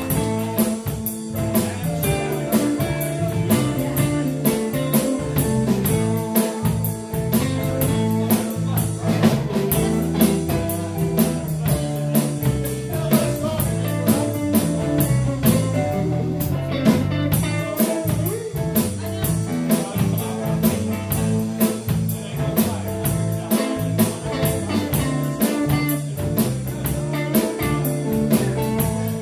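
Live blues band playing: electric guitars, electric bass and drum kit, with a steady cymbal beat.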